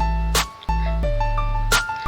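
Instrumental music from a worship song, with no singing: held low bass notes under steady higher melody notes, and two sharp percussive hits, about a second and a half apart.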